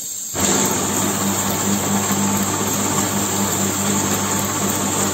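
An ampoule filling and sealing machine starts running about a third of a second in. Its drive gives a steady mechanical hum over the hiss of the gas-oxygen sealing burners, as empty ampoule tubes are fed through the flames on a test run.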